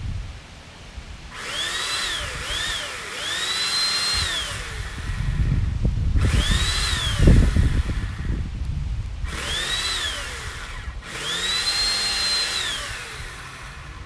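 Corded electric saw cutting tree branches overhead: the motor runs in four trigger bursts, each whine rising in pitch, holding and then winding down. A heavy low rumble comes between the first and third bursts, loudest about seven seconds in.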